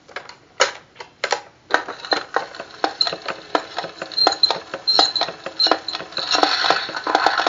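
Background music with a fast, even percussive clicking rhythm of about four or five strokes a second over a high repeating tone, swelling into fuller music near the end.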